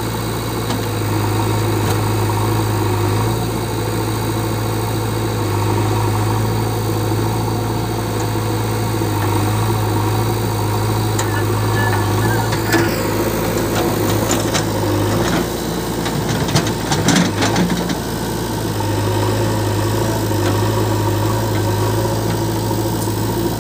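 Diesel engines of a JCB 3DX backhoe loader and a farm tractor running steadily with a constant low hum. Between about 13 and 18 seconds in there is a spell of knocks and rattles over the engines.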